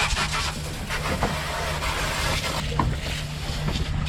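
Boat deck being cleaned of fish droppings: a steady rough hiss of scrubbing and rinsing with a few light knocks, over a low steady hum.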